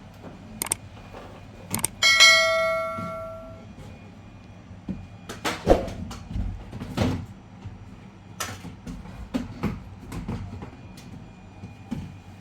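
A metal object is struck about two seconds in and rings with a clear bell-like tone that fades over a second and a half. Short household knocks and clatter are scattered around it.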